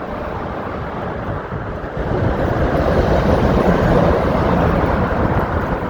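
Motor traffic noise on the Queensboro Bridge: a steady rush of passing vehicles that grows louder about two seconds in.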